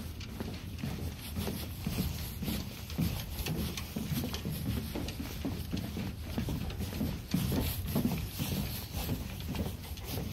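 Footsteps on wooden dock boards: an uneven run of low knocks, a few a second.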